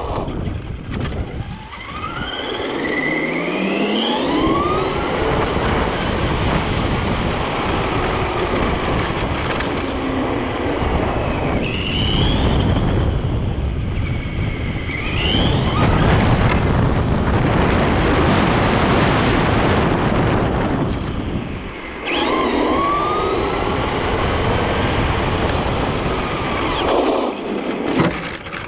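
Traxxas RC truck driving fast over asphalt, heard from a camera mounted on the truck: a constant rush of tyre and wind noise, with the motor's whine rising and falling in pitch several times as the throttle goes up and down.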